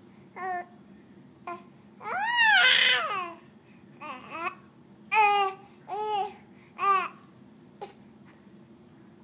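A baby babbling and squealing in short bursts that rise and fall in pitch, the longest and loudest about two seconds in. Two short sharp hiccups come between them.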